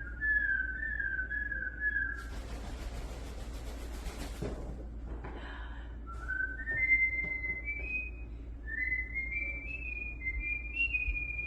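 Cockatoo whistling a tune in short stepped notes, broken for about two seconds by a hissing rustle before the whistling resumes and climbs higher.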